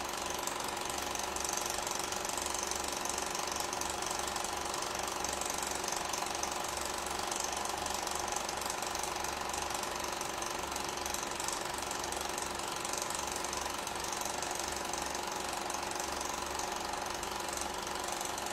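Film projector running with a steady mechanical clatter and hum.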